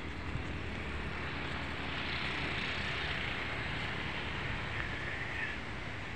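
Steady wind buffeting the microphone with a low rumble, and a higher hiss that swells in the middle and fades again.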